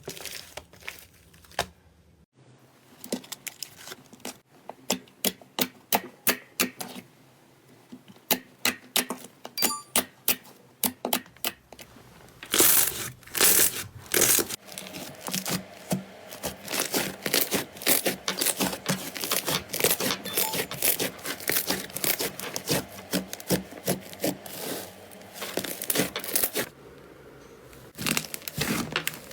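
Slime being squeezed and worked by hand, making rapid sticky crackles, pops and tearing sounds, with brief breaks where one clip cuts to the next.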